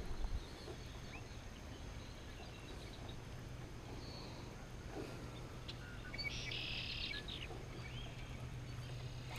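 Quiet outdoor ambience with a steady low hum and a few scattered bird chirps; the loudest is a brief chattering burst about six and a half seconds in.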